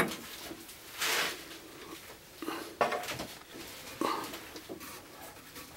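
Wood-lathe tool rest being moved along the bed and re-locked while the lathe is stopped: a short scraping slide about a second in, then several metal clunks and knocks.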